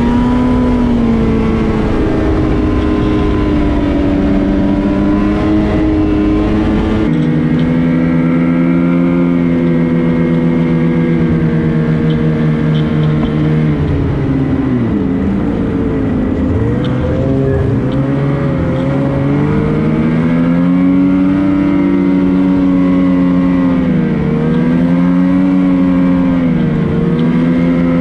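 Ski-Doo XRS 850 snowmobile's two-stroke engine running under way. Its pitch drops as it slows about halfway through, then climbs again as it accelerates. A heavy low rumble lies under it for the first seven seconds and cuts off abruptly.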